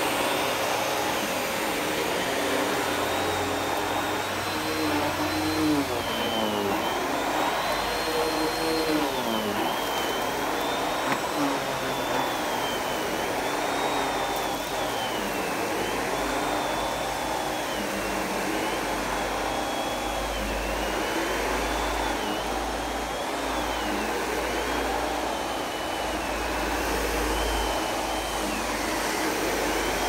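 Cirrus canister vacuum cleaner running with its motorized power head on carpet, a steady rushing whine whose pitch rises and falls again and again as the head is pushed back and forth.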